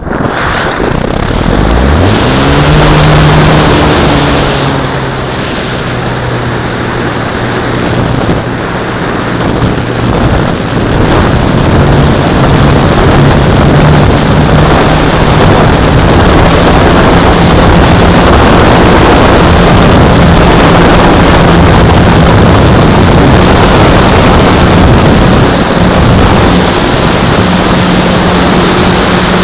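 Onboard sound of a radio-controlled Extra 330L model aerobatic plane in flight: its motor and propeller run loud under a heavy rush of wind on the onboard microphone. About two seconds in, the pitch climbs quickly and then holds fairly steady, with small shifts as the plane manoeuvres.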